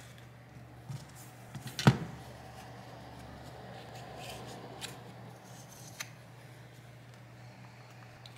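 Pry tools being handled against an iPad's glass and a silicone repair mat while the screen is pried off: one sharp click about two seconds in, then a few lighter clicks and faint scraping.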